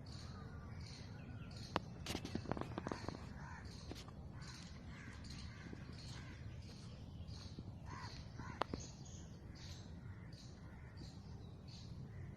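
Birds calling repeatedly in short high notes about twice a second, with a few sharp clicks or knocks about two seconds in and near nine seconds.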